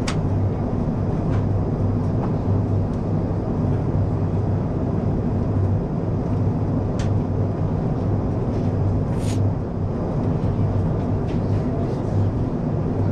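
Steady cabin noise inside an Airbus A380 on descent: a low drone from its Engine Alliance GP7200 turbofans under the rush of airflow, heard at a window seat beside the wing. A couple of faint brief clicks are heard about seven and nine seconds in.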